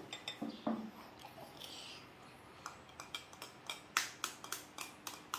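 A metal spoon clinking and tapping against a mixing bowl while batter is stirred: a run of light, sharp clicks, few at first, then quicker and crisper in the second half.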